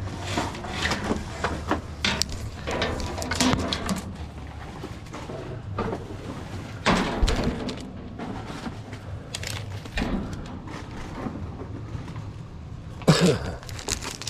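Objects being handled and moved about in a dumpster: irregular knocks, clunks and rustling, with one louder thump near the end.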